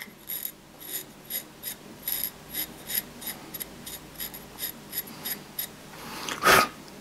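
Extrema Ratio Task C knife edge shaving forearm hair: a quick series of short, crisp scrapes, about three a second. The blade is still shaving-sharp after cutting cardboard. A single louder thump comes near the end.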